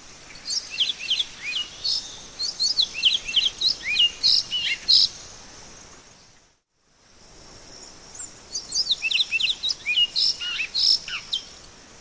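Great-billed seed finch (bicudo) singing: two long phrases of quick whistled notes sliding up and down, broken by a brief silence about halfway through, over a steady high hiss.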